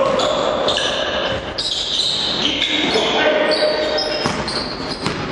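Basketball game on a hardwood court in a sports hall: sneakers squeaking sharply on the floor and the ball bouncing, with players calling out, all echoing in the hall.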